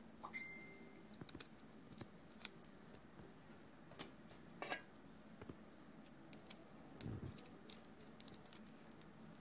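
Near silence with faint, scattered clicks and small handling noises, a louder crackle about halfway through and a soft thump about three-quarters in.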